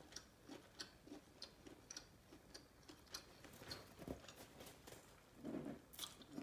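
Close-miked, closed-mouth chewing of a bite of lobster tail: soft, irregular wet clicks and smacks of the mouth, several a second.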